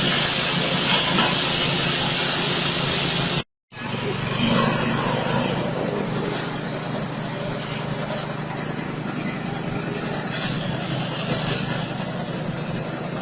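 Engine-driven straw chopper and grinding machine running steadily, its small 6.5 hp engine humming under a hissing rush of the spinning cutter. The sound breaks off completely for a moment about three and a half seconds in, then resumes somewhat quieter with less hiss.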